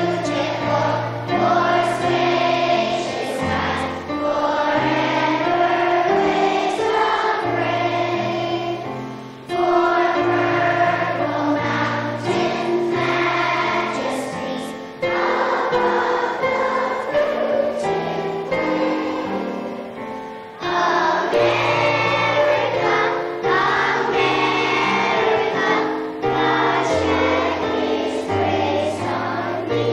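A large group of schoolchildren singing a song together, with instrumental accompaniment holding steady bass notes. The singing goes in phrases with a short break every five or six seconds.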